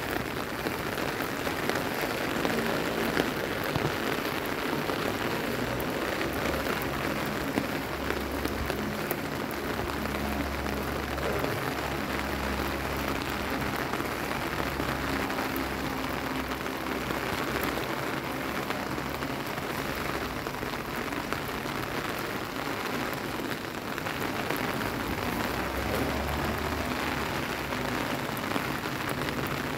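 Steady rain falling on wet stone paving: an even hiss with scattered drop ticks.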